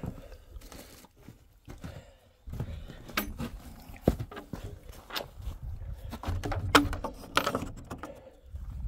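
Footsteps and scattered sharp knocks and clicks from a wooden chicken-coop door being handled, over low rumbling handling noise. The loudest knock comes about three-quarters of the way through.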